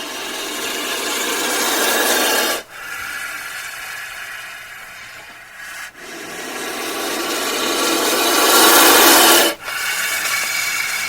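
Cobra hissing: a series of long breathy hisses, each about three seconds long and cutting off abruptly. The hisses alternate between louder, fuller ones that swell as they go and softer, thinner ones.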